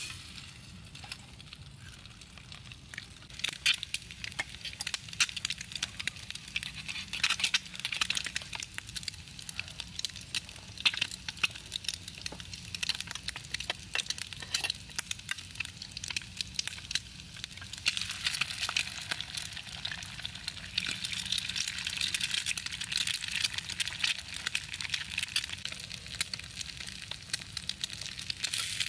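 An egg frying in oil in a small pan over a wood campfire: a sizzling hiss full of sharp pops and spits, getting denser and steadier in the second half.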